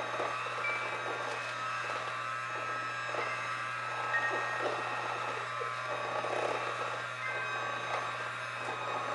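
Handheld electric mixer running steadily, a constant motor whine as it beats cake batter in a bowl.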